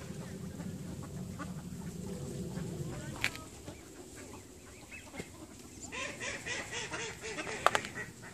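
Mallard ducks calling, with a quick run of quacks about four a second starting around six seconds in, over a low, even rumble. There are two sharp clicks, the louder one near the end.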